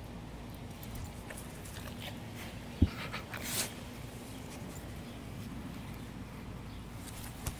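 English bull terrier rooting around in grass and tomato plant leaves, with small clicks and rustles. A sharp thump comes about three seconds in, followed by a short crackling rustle.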